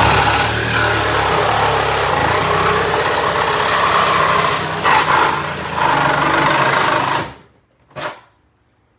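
Electric power tool running hard for about seven seconds, with a fast rhythmic chatter, then stopping abruptly; a single knock follows about a second later.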